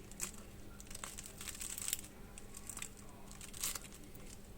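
A handful of separate crisp crackles and crunches, the loudest about two seconds in and again near the end, over a steady low hum.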